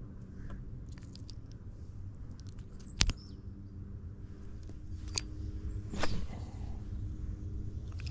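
A few sharp knocks and clicks from fishing gear being handled in a boat, loudest about three seconds in and again about six seconds in, over a steady low rumble.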